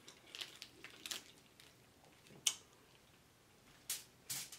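Close-miked eating of a lobster tail: quiet wet chewing and mouth sounds with scattered sharp clicks, a louder one about halfway through and a pair near the end.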